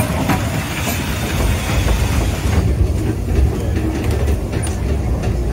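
Narrow-gauge steam train on the move: a steady low rumble with scattered clicks of wheels on the rails. The higher hiss drops away about halfway through.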